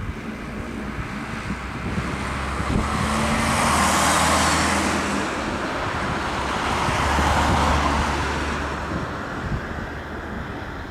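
Two road vehicles driving past one after the other, each swelling up and fading away, over a steady low engine hum.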